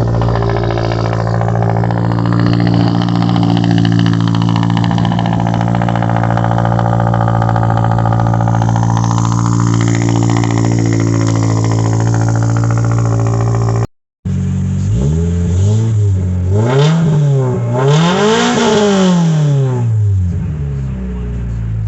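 Toyota GR86's 2.4-litre flat-four with an AWE Sport Touring exhaust, idling steadily. After a brief break about two-thirds through, it is blipped through several quick revs, the last the highest, then drops back to idle.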